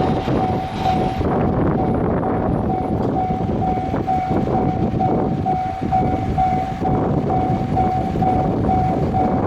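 A train running past over a railway level crossing, wheels rumbling and clacking, while the crossing's warning bell rings a steady, evenly repeated ding.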